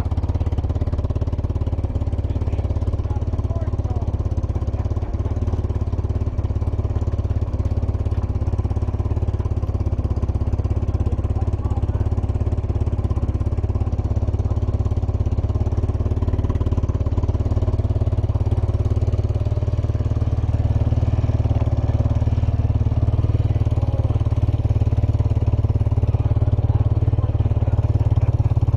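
ATV (four-wheeler) engine running steadily, getting a little louder toward the end.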